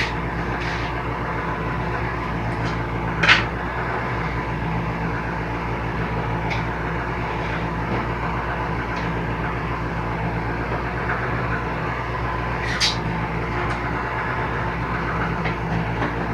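A steady mechanical hum at an even level, with a louder sharp click about three seconds in and another near thirteen seconds.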